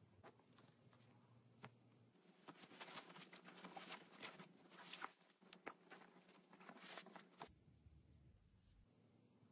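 Faint rustling and scratching of padded fabric, with many small clicks and taps, as hands tuck a doll into a cushioned cloth carrier; it starts about two seconds in and stops abruptly near the end.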